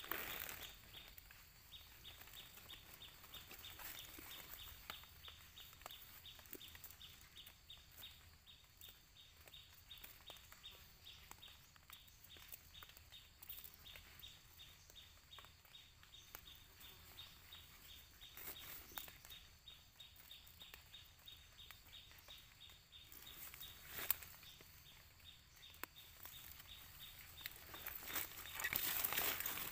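Faint outdoor ambience: a fast, steady ticking with a high hiss above it, broken by a few louder short knocks or rustles, the strongest one late on.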